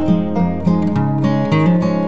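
Background music: a lively tune of quickly plucked string instruments, guitar- or banjo-like, with new notes struck several times a second.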